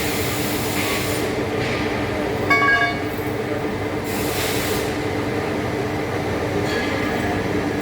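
Heavy-duty lathe and workshop machinery running with a steady hum and low drone, with hissing surges near the start and about four seconds in. A brief high metallic squeal comes about two and a half seconds in.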